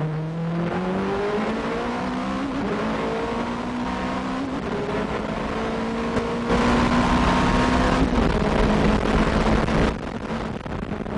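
Nissan R90CK Group C race car's twin-turbo V8 heard onboard, accelerating hard through the gears: its pitch climbs and steps back down at each upshift. About six and a half seconds in it gets louder and holds a steady high pitch, then falls back near the end.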